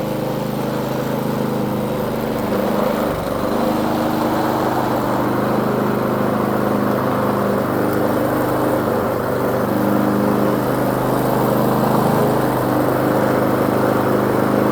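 Lawn mower's small engine running steadily.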